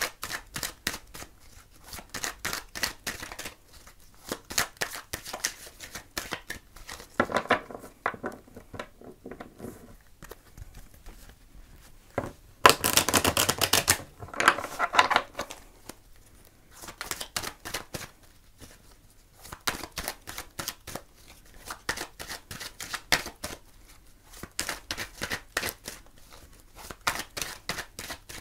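A deck of oracle cards being shuffled by hand: a string of quick card flicks and clicks, with a denser rush of card noise about thirteen seconds in.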